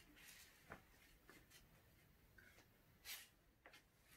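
Near silence: quiet room tone with a few faint, short rustles and taps, the loudest about three seconds in.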